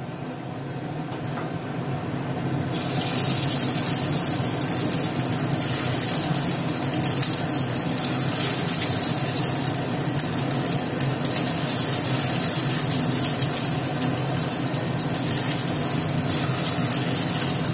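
Egg-and-cornflour-coated chicken pieces being dropped one by one into hot oil in a kadai and sizzling as they deep-fry, the sizzle starting loud about three seconds in and staying steady. A steady low hum runs underneath.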